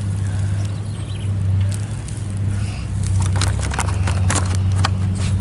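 A steady low engine hum runs throughout, with a run of sharp clicks and taps starting about three seconds in.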